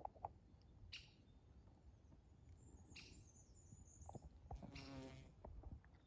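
Near silence, broken by a few faint, brief high chirps about one and three seconds in and a short buzzing call near the five-second mark.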